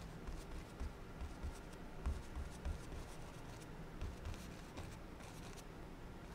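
Paintbrush dabbing and stroking oil paint onto a stretched canvas on an easel: a run of soft, irregular taps with faint scratchy brush strokes.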